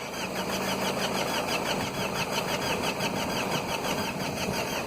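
Mazda 2.2 diesel engine turned over by the starter motor without firing, an even rhythm of about seven beats a second. The engine cranks but does not start, which the mechanic puts down to too little cranking speed, with the battery flat.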